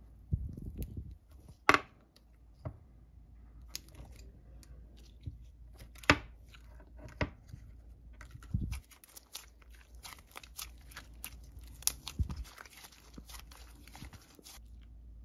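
Sticky clay slime pulled apart and kneaded by hand, clinging to the fingers: irregular wet crackles, pops and tearing sounds, with louder snaps about 2, 6 and 12 seconds in.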